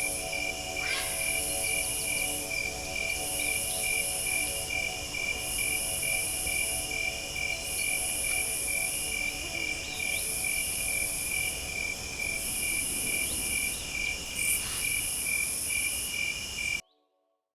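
Insect chorus: a steady cricket trill under a higher insect buzz that comes in pulses about a second long, repeating about every two seconds, with a few short bird chirps over it. The sound cuts off abruptly near the end.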